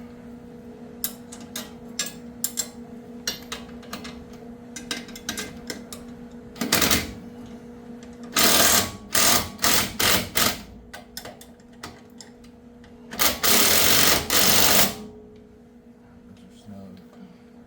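Power wrench running in the strut-to-knuckle bolts in short bursts: one burst, then a quick run of about five, then a longer one. Light metal clicks of tools and sockets come between them.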